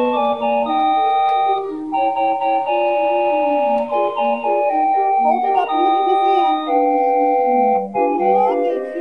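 Background music played on an organ-like electronic keyboard: a melody of held notes stepping up and down.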